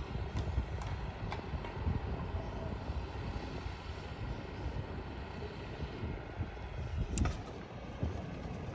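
Steady low rumble of a truck-mounted crane's engine running as it hoists a roof truss, with a few short sharp knocks, the loudest about seven seconds in.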